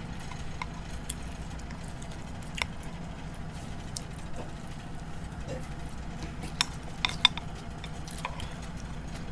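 Chopsticks and a spoon clicking against ceramic bowls as noodles are eaten, scattered light clicks with a few sharper clinks about seven seconds in, over a steady low hum.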